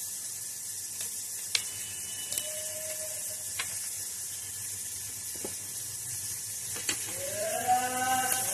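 A small knife clicking now and then as a green vegetable is peeled by hand, over a steady hiss. A person's voice comes in about seven seconds in.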